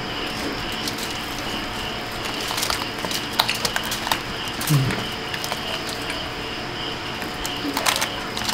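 Scattered light clicks and crackles, busiest in the middle, over a steady background hiss with a faint pulsing high note. A brief low murmur comes about five seconds in.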